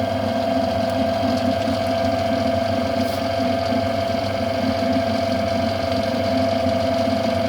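Metal lathe running steadily with a constant whine, boring out a bearing housing and brake together in the four-jaw chuck.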